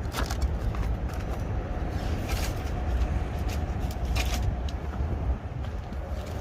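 Strong, gusty wind rumbling on the microphone, with scattered short rustles and clicks over it.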